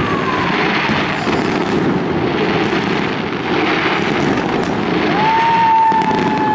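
Fireworks display: a dense, continuous crackling with many quick pops from bursting shells. About five seconds in, a long tone rises and then slowly slides down in pitch.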